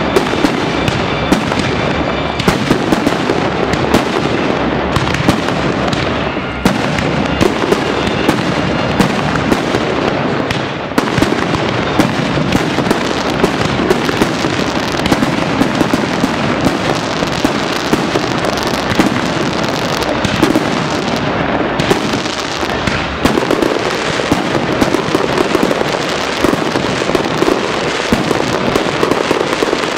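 Aerial fireworks display: a dense, unbroken barrage of shell bursts, with many sharp bangs a second.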